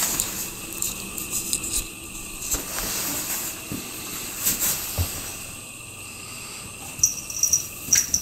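A cat digging and pawing into packed snow, a run of irregular short crunches and scrapes.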